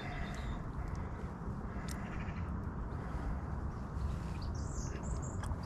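Birds calling outdoors over a steady low rumble, with a few short calls near the end and a couple of brief clicks.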